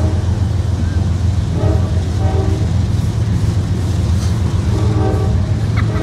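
Freight train cars rolling past close by: a steady heavy rumble, with short pitched notes cutting in every second or so.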